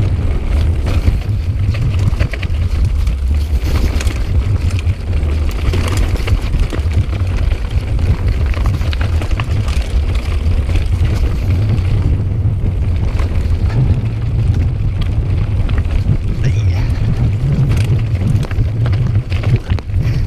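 Calibre Bossnut mountain bike rattling down a rocky track: tyres crunching over loose stones with frequent clicks and knocks from the bike, under a heavy, steady rumble of wind buffeting the camera microphone.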